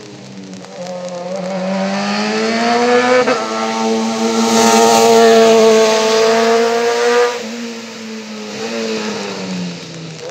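Small race car's engine revving hard as it accelerates. The pitch climbs, breaks briefly at an upshift about three seconds in, and holds high at its loudest through the middle, then drops and fades as the car moves away.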